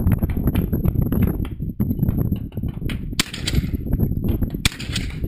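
Two shotgun shots about a second and a half apart, each with a short echo, over a steady low rumble of wind on the microphone.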